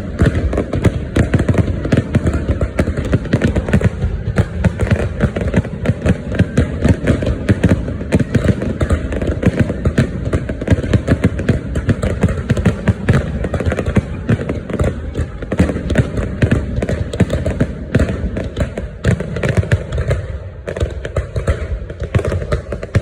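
Fireworks going off without pause: a dense, continuous crackle of many overlapping bangs and pops, with heavy low booms underneath.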